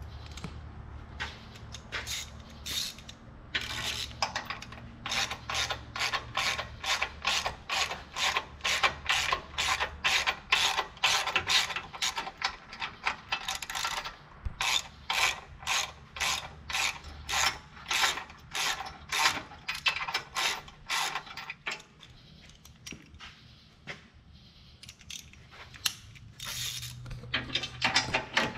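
Socket ratchet clicking in a long run of quick, even strokes as bolts are run in to hang a skid plate loosely, pausing for a few seconds near the end before clicking again.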